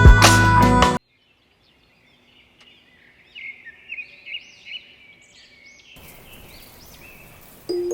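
Background music cuts off suddenly about a second in. After a short silence, birds chirp in quick, repeated, arching notes, and a faint steady hiss joins them partway through. Music with chime-like tones comes back in just before the end.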